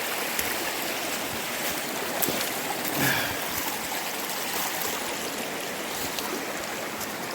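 Creek water running over rocks: a steady rushing, with a few faint knocks.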